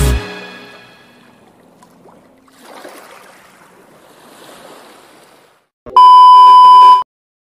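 Intro music cuts off and fades, followed by two soft surf-like swells of an ocean-wave sound effect. About six seconds in, a loud, steady TV test-tone beep sounds for about a second, then cuts off suddenly.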